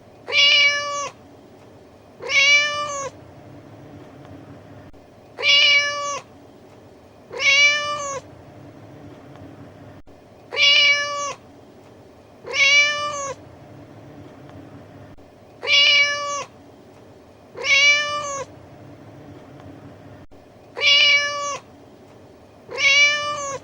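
Domestic cat meowing: a sound-effect loop of the same pair of meows, each under a second long and rising then falling slightly in pitch, repeated five times about every five seconds.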